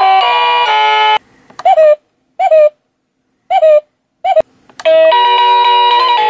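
Wireless doorbell chime unit playing electronic polyphonic chime tunes. One melody stops about a second in, then four short tones follow about a second apart, each drooping in pitch. A click comes just before a new melody starts about five seconds in.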